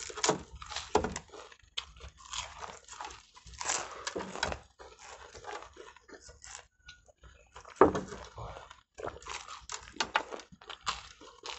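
People biting and chewing Danish pastries with their mouths close to the microphone: irregular smacking, munching and crunching noises, loudest about eight seconds in.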